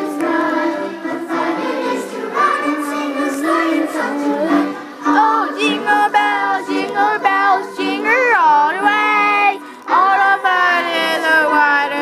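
A song with a high-pitched singing voice, swooping up and down in pitch in places, over a steady held accompaniment note.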